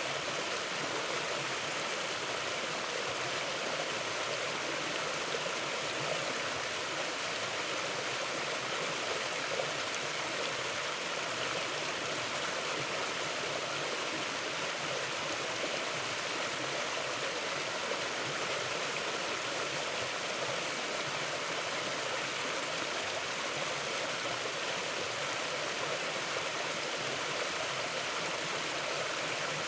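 A mountain stream flowing steadily over rocks, a constant rushing wash of water with no change.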